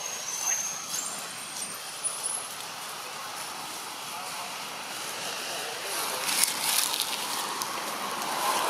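Steady outdoor background noise with a few short, high bird chirps in the first second or so. Scratchy rustling comes in past the middle.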